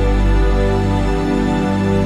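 Slow, sad background music in a new-age style, with sustained held chords over a deep bass.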